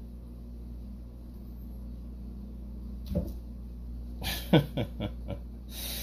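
A few short grunts with falling pitch, the loudest about four and a half seconds in, and a breathy exhale near the end, over a steady low electrical hum.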